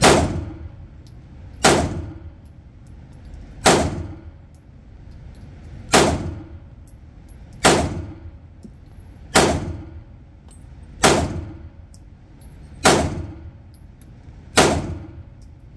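Polymer80 Glock-pattern 9mm pistol fired in slow, steady aimed fire: nine shots, about one every two seconds, each ringing out in the echo of an indoor range.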